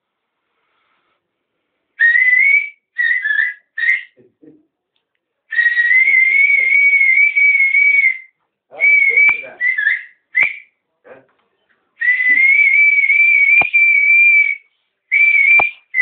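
A man whistling a slow uzun hava melody: long held notes with a slight wavering, broken into phrases with short gaps. It starts about two seconds in, with a few faint clicks between notes.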